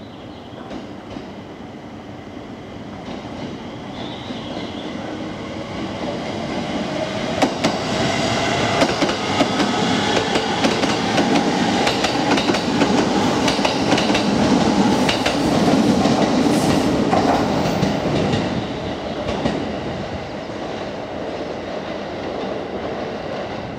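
JR East 701 series 5000-series electric train passing at low speed, its wheels clicking over the rail joints. The sound builds over the first several seconds, is loudest through the middle, and eases off near the end.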